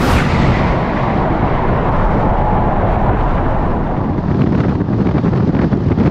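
Loud wind and road rush of a car at Autobahn speed, opening with a sudden whoosh that fades over about a second; from about four seconds in, rough crackling wind buffeting on the microphone.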